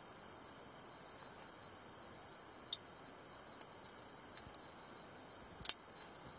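Small, sharp metal clicks from a Spyderco Dog Tag Folder clone keychain knife handled by hand, as its little blade is swung out of the tag and folded back, a few spaced clicks with the loudest, a quick double click, near the end.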